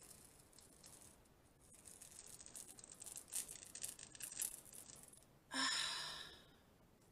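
Dried charcoal peel-off mask being pulled slowly off the forehead and hairline: a faint crackling, sticky tearing that gets a little louder and busier in the middle. A brief louder sound comes about five and a half seconds in.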